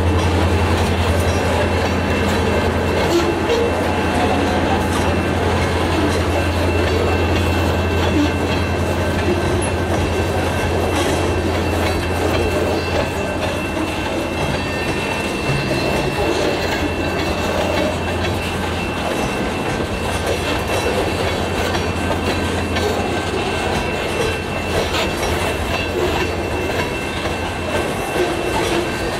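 Loaded grain cars of a Wisconsin & Southern freight train rolling past on the rails. There is a steady low rumble that eases off about two-thirds of the way through, with faint high wheel tones above it.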